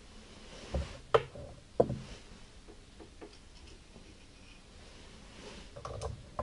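Irregular sharp metal clicks and knocks of hand tools and parts as a mini motocross bike's clutch is unbolted and taken apart, the loudest a little after one second and near two seconds.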